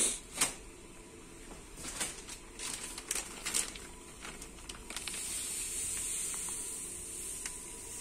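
Scattered light clicks and knocks from things being handled on a kitchen counter, over a faint steady hiss.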